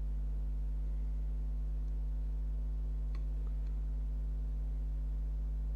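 Steady electrical mains hum at a constant level, with a few faint small ticks about three seconds in.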